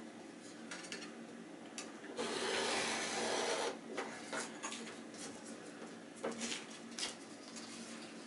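Sandpaper sheets handled on a table: one loud rough scrape of abrasive paper about a second and a half long, a little over two seconds in, with light rustles and small clicks around it.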